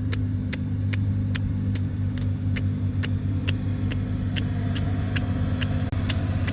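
Car engine running steadily, heard inside the cabin, with a turn-signal indicator ticking evenly about two and a half times a second.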